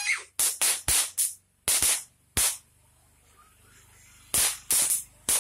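Firecrackers going off in the air in a rapid string of sharp bangs: about six in the first two and a half seconds, a pause of nearly two seconds, then about four more near the end.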